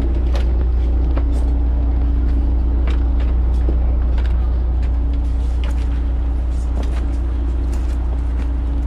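An engine running steadily: a loud, even low drone with a steady hum, with scattered light clicks and knocks over it.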